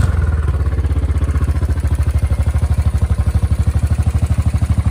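Royal Enfield Continental GT's 535 cc air-cooled, fuel-injected single-cylinder four-stroke engine, running through its standard exhaust, dropping back from a rev to a steady idle. Each firing stroke is heard as a separate, even thump.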